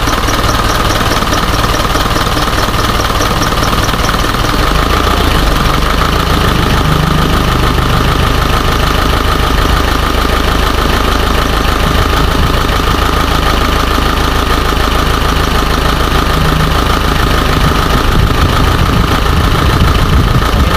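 Isuzu 4HJ1 four-cylinder diesel engine idling loudly and steadily. It is misfiring, which the mechanic puts down to only three of its four injectors working.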